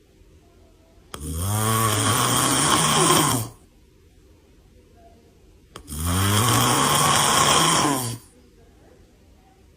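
A man snoring: two long snores about four and a half seconds apart, each lasting about two seconds, with quiet breathing gaps between them.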